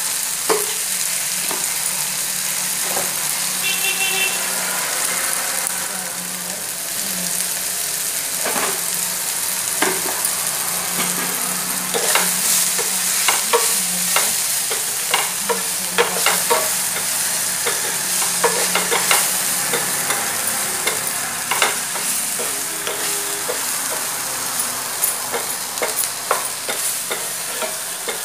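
Yardlong beans and potato strips sizzling in oil in a nonstick pan while a wooden spatula stirs and turns them. Frequent clacks and scrapes of the spatula against the pan come over a steady hiss of frying, busiest in the second half.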